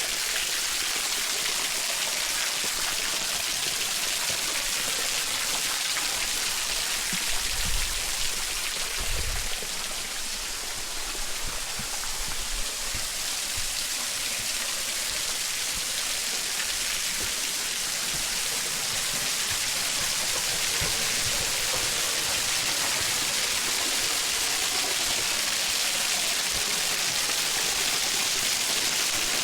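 Waterfall splashing onto rocks: a steady, even rush of falling water, with two brief low bumps about eight and nine seconds in.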